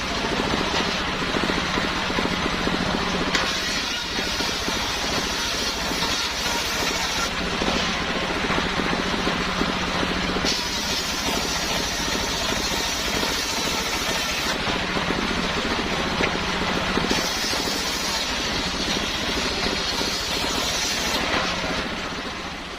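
Homemade engine-driven circular saw running steadily, its tone changing every few seconds.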